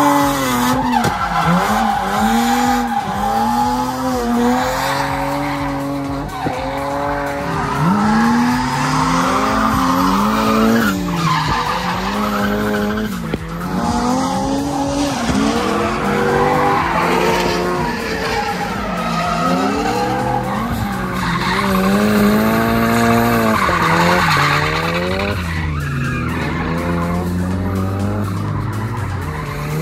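Drift cars sliding around a course: engines revving up and down every second or two as the drivers work the throttle, over continuous tyre squeal and skidding.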